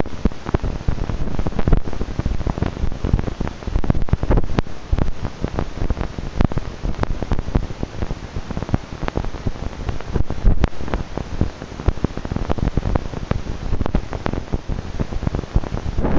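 Wind buffeting the microphone: a loud, uneven low rumble with frequent crackles and knocks.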